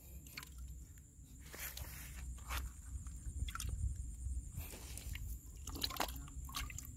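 A hand and forearm pushing into a narrow hole of wet mud and soil, giving irregular soft squelches and small crunching crackles as it gropes around.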